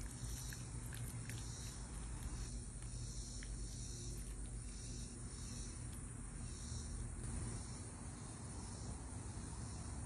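Insects chirring steadily, a high shrill sound that pulses in an even rhythm, over a constant low rumble.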